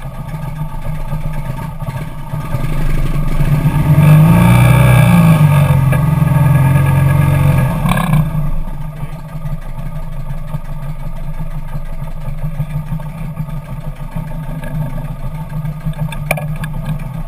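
Kawasaki Nomad motorcycle's V-twin engine idling, revved up for about four seconds, then settling back to idle. A few sharp clicks near the end.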